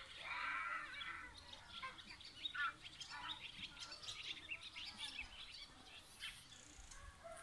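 Small birds chirping and singing, many short calls overlapping, with a denser run of calls in the first second; faint.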